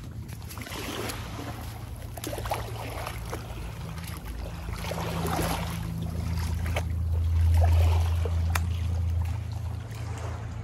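Small waves washing over sand and rocks at the water's edge, with feet in flip-flops splashing through the shallows. Under it runs a low steady hum that swells about seven seconds in and drops again near the end.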